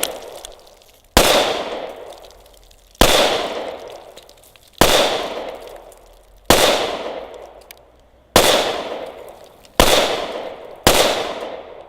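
Glock 21 Gen 4 .45 ACP pistol fired seven times at a slow, deliberate pace, about one shot every one and a half to two seconds, with the last two closer together. Each shot is followed by a long echoing decay.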